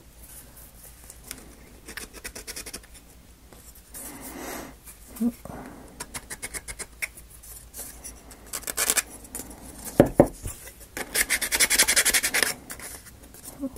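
Laser-cut plywood model parts being handled and fitted together: scattered light clicks and taps, a couple of knocks about ten seconds in, then a stretch of scraping a second or so later.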